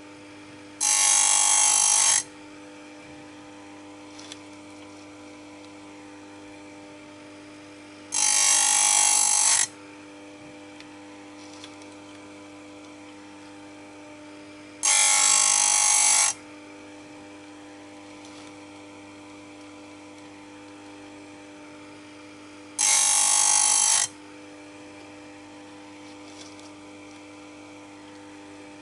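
Stihl USG electric chain grinder's motor running steadily, with four short bursts of grinding, each about a second and a half long and spaced about seven seconds apart, as the spinning wheel is brought down onto one saw-chain cutter after another.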